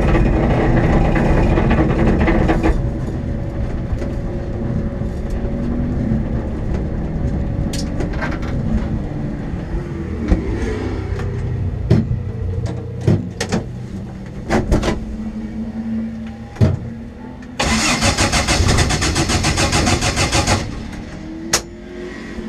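Race cars passing at the start. Later comes about three seconds of a starter motor cranking the MG Midget's engine, which does not fire: the ignition coil has failed. Sharp clicks from switches on the dash come in between.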